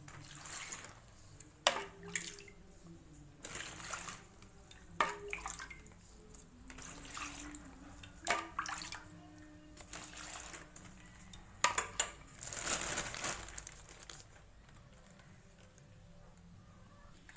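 Coconut milk poured from a steel cup into a thin plastic bag, splashing in several separate pours.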